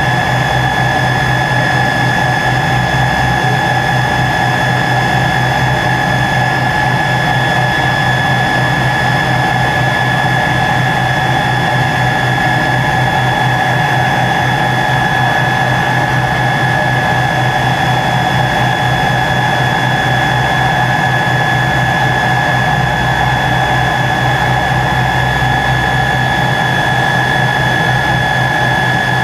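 Tupolev Tu-134B-3's rear-mounted Soloviev D-30 turbofan engines running on the ground, heard from inside the cabin: a steady whine of several high tones over a low hum with a rapid flutter.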